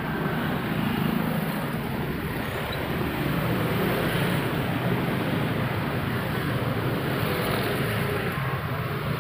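Steady street traffic noise from passing motorbikes and cars.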